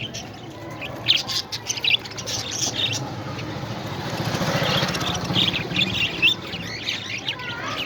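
Pet parrots chirping in quick clusters of short, high calls, with a rushing noise that swells and fades in the middle.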